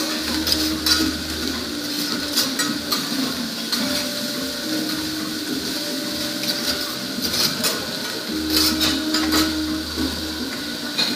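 Metal spatulas scraping and clicking on a teppanyaki griddle as fried rice is stirred and chopped, irregular sharp strikes over a steady hiss.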